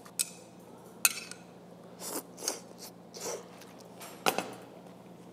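Metal chopsticks tapping and clicking against a small ceramic bowl as ramen noodles are served out to taste: a handful of short, separate clicks about a second apart.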